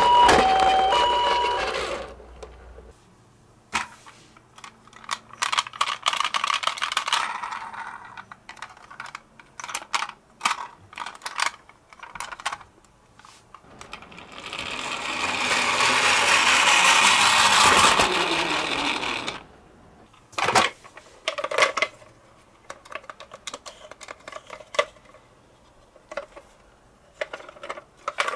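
Toy ambulance minicar's electronic two-tone hi-lo siren, which cuts off about two seconds in. Then come scattered plastic clicks and rattles from the toy, and a few seconds of rolling noise around the middle that builds and stops abruptly.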